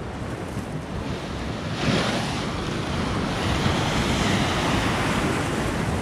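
Rough winter waves of the Black Sea breaking against a concrete groyne: a steady rush of surf, with a bigger wave surging and splashing over the groyne about two seconds in.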